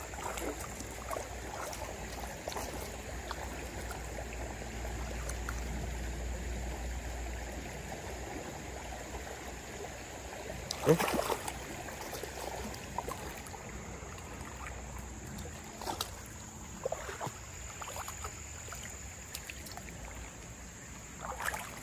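Shallow creek water flowing and trickling steadily, with a brief louder sound about eleven seconds in and a few faint knocks later on.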